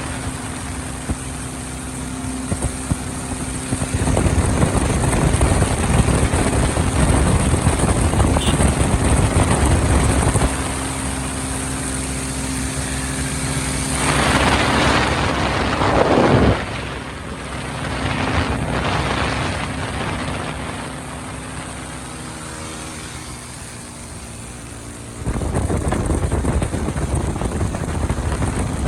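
Motorcycle engine running on the move, with wind rushing over the microphone; the engine note shifts up and down several times. A loud rushing swell builds and cuts off suddenly about sixteen seconds in.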